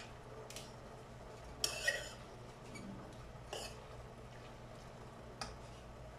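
Metal spatula scraping and clinking against a frying pan as bitter gourd and egg are stir-fried: a few separate strokes, the loudest a pair about two seconds in, over a low steady hum.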